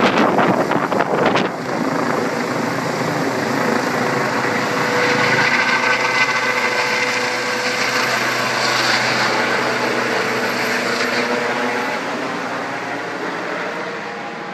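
Helicopter passing low overhead. Its rotor gives a strong beating chop for about the first second and a half, then settles into a steady rotor-and-turbine sound with a whine as it flies away, fading near the end.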